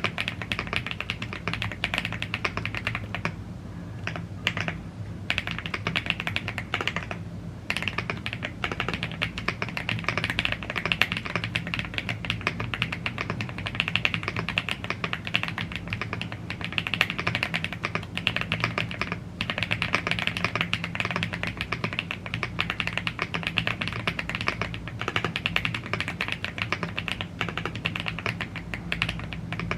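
Continuous fast typing on a YUNZII AL75 gasket-mounted aluminium mechanical keyboard with Blue Grey tactile switches and PBT keycaps: a dense run of keystroke clacks with a few brief pauses. A faint low hum sits underneath.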